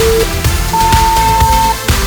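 Electronic dance music with a steady beat, overlaid by interval-timer beeps. A short low beep ends just after the start, and a longer, higher beep sounds about a second in, the signal for the switch between a work interval and a rest interval.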